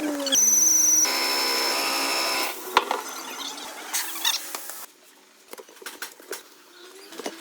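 A small power tool, its pitch sliding at first, then running steadily for about two seconds before it stops. Scraping and light tool clicks and clinks follow.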